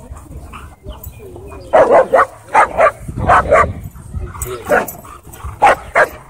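A dog barking: around ten short barks, mostly in quick pairs, starting about two seconds in.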